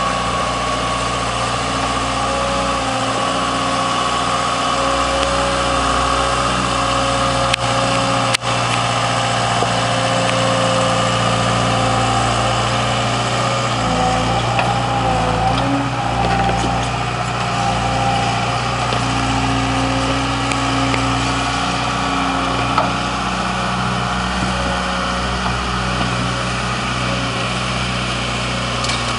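Land Tamer amphibious tracked vehicle's engine running steadily as the vehicle drives, its note shifting slightly a few times.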